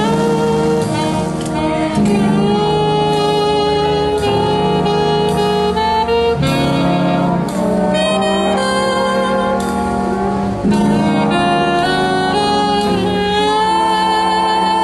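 Alto saxophone playing a slow jazz ballad melody with sustained, gliding notes, over a jazz band accompaniment.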